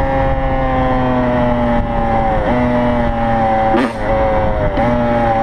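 Yamaha YZ85's two-stroke single-cylinder engine running at a steady road cruise, heard from the rider's camera. Its note sags slowly, with three brief dips in the middle and end.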